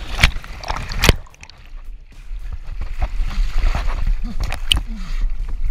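Water splashing and sloshing as a canoe capsizes and swamps. There are two sharp knocks against the hull in the first second, then a steady rush of water pouring and sloshing in the flooded canoe.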